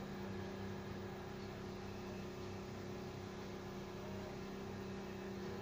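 Steady low electrical hum with a faint hiss, unchanging throughout.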